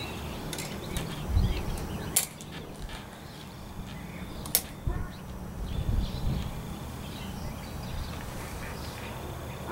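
A plastic cable guide being fitted onto a mountain bike frame by hand: two sharp clicks about two and a half seconds apart, over low, uneven handling noise.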